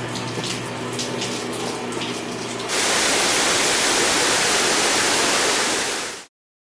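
A pump running with a steady hum and water moving through it; about three seconds in this gives way to a loud, even hiss of water spraying out of a pipe, which cuts off abruptly near the end.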